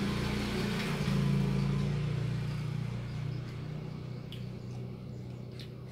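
A motor vehicle's engine drone going past outside, loudest about a second in and then fading away. A few faint clicks near the end come from food being picked up by hand.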